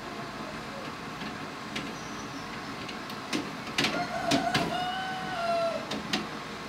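Automatic incubator's egg-turning rails sliding under the eggs: a series of clicks and knocks with a squeak held for about a second and a half in the middle, over the steady whir of the incubator's fans.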